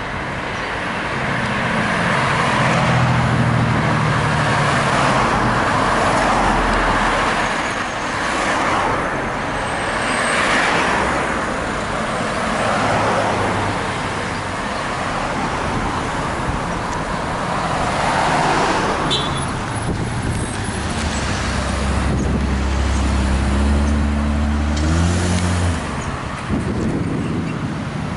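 Road traffic: cars driving past one after another. Near the end a heavier engine note builds and rises in pitch as a vehicle pulls away.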